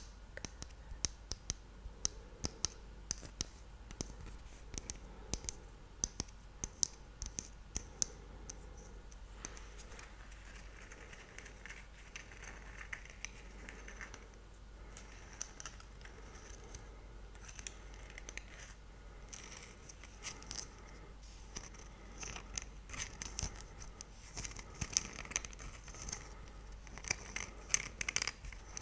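Fingernails tapping and scratching on a small figurine held close to the microphone: runs of quick, sharp clicks with softer scratching in between, the clicks thickest near the start and again near the end.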